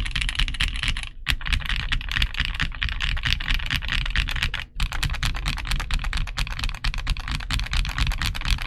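Fast typing on a Gamakay SN75 mechanical keyboard with Gateron Milky Yellow linear switches on a polycarbonate plate: a dense run of keystroke clacks, broken by short pauses about a second in and again around the middle.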